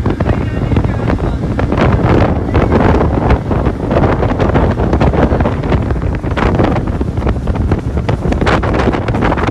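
Heavy wind buffeting the microphone on a speeding inflatable boat, over the steady drone of the boat's engine and the rush of its churning wake.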